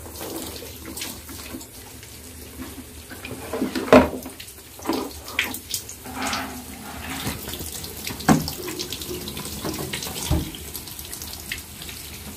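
Tap water running while a shampooed bag is rinsed under it, with splashes and knocks of handling, the loudest about four seconds in.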